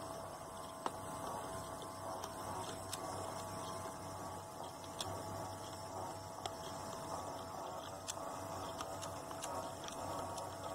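A steady electrical hum with faint clicks scattered through it.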